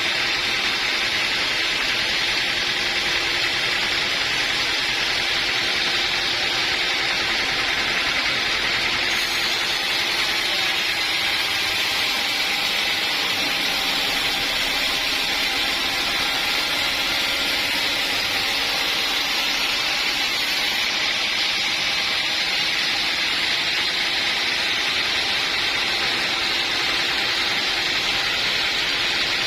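Sawmill saw running steadily through wood: a constant high hiss of cutting over a faint machine hum.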